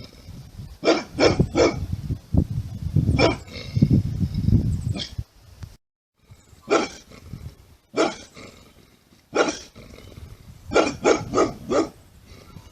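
Bulldog barking in short single barks and quick runs of two or three, with a low rumble between barks near the middle.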